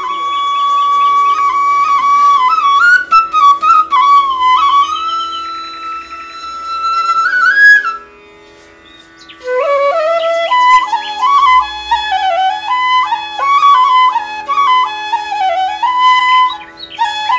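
Background music: a flute plays a slow melody that slides and bends between notes over a steady drone, breaking off for a moment about halfway through before going on.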